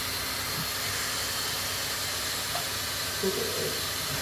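Steady hiss of a Leister hot-air vinyl floor welder blowing hot air.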